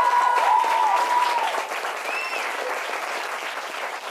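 Small audience applauding and cheering, with several whoops in the first second or so, the clapping gradually dying down.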